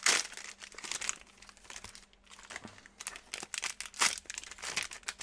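Plastic wrappers of Panini Hoops trading card packs crinkling and tearing as they are ripped open by hand: an irregular run of crackles, with sharper ones at the start and about four seconds in.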